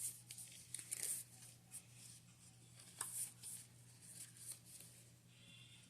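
Faint rustling and light clicks of paper sticker sheets being handled and sorted, in short scattered bursts over a steady low hum.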